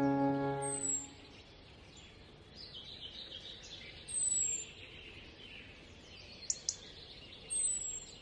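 A held music chord fades out about a second in, leaving quiet outdoor ambience with birds chirping a few times. Two quick clicks come near the end.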